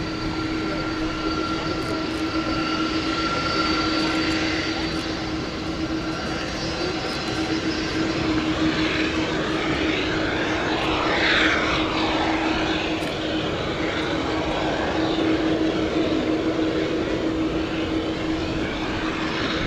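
Boeing 787-8 airliner's jet engines running at low power on the ground during pushback: a steady hum and whine with a constant low tone, and higher whistling tones that fade out in the first third. A brief falling whoosh sounds about halfway through.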